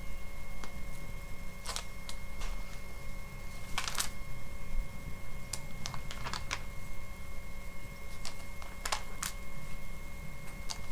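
Magazine pages being turned and handled: about a dozen irregular soft flicks and rustles of paper, over a steady low hum with a faint high whine.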